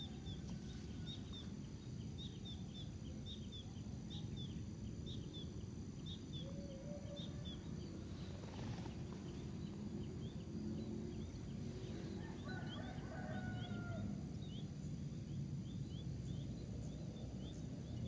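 Rural rice-paddy ambience: domestic fowl calling a few times, over many short high chirps that keep repeating and a steady low rumble.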